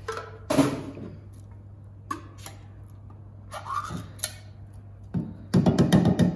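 A spoon knocking and scraping against an open tin can while tomato soup is emptied out of it: scattered clinks, then a quick flurry of scraping knocks near the end, the loudest part.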